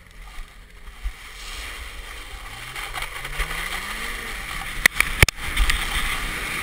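Wind rushing over the microphone of a camera worn by a snowboarder being towed, growing steadily louder as the speed picks up, with the tow snowmobile's engine faintly rising in pitch underneath. Two sharp knocks on the camera come about five seconds in.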